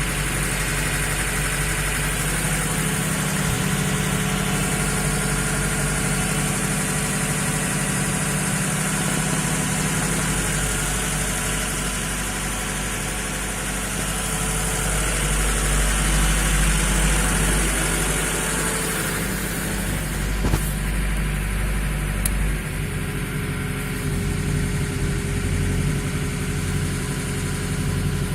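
VAZ 2106 inline-four petrol engine running steadily at idle, knocking; the owner says this engine is burning oil. The low part of the engine note changes about two-thirds of the way through.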